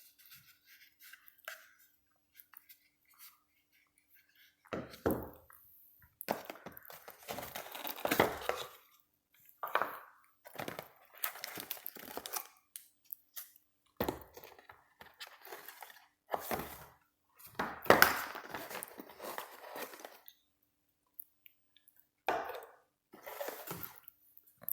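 Box packaging being handled and opened: irregular bursts of rustling, tearing and crinkling, with a few sharp clicks, sparse at first and then busy.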